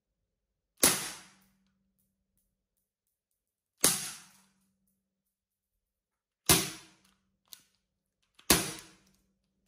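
KJ Works Ruger Mk1 green-gas airsoft pistol firing four single shots at uneven intervals, each a sharp crack with a short faint ring after it. Two small clicks come just before the last shot.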